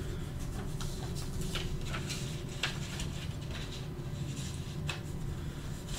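Faint rustles and light ticks of a paper envelope, a plastic card holder and a small piece of tape being handled and folded, over a steady low hum.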